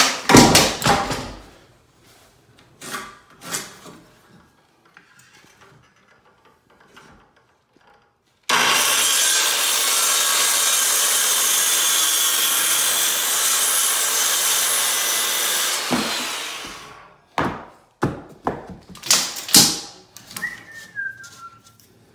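Corded circular saw starting abruptly about eight seconds in and running steadily through a 2x4 for about eight seconds, then winding down. Knocks of the board and tools being handled come before and after the cut.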